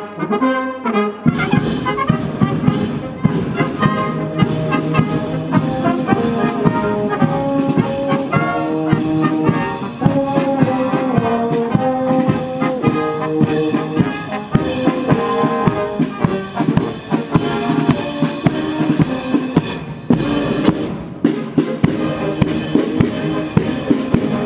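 A brass band playing a march while marching, with tubas, horns and trumpets over a steady drum beat.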